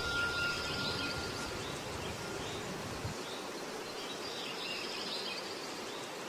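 Outdoor ambience: a steady hiss with faint bird chirps scattered through it. A thin high tone fades out over the first two seconds.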